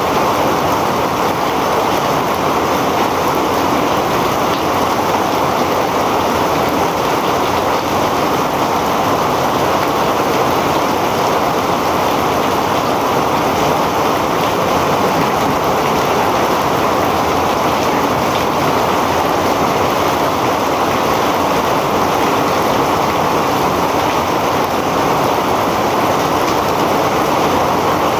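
Heavy rain pouring down in a steady, unbroken roar.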